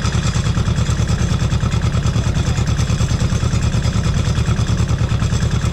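An engine running at a steady speed, with an even, rapid pulsing beat.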